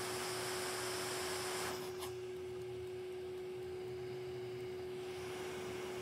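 Hot-air rework station blowing, a steady hiss of air over a constant humming tone, heating the phone board to solder a replacement display connector. The hiss drops sharply with a click about two seconds in and then carries on more quietly.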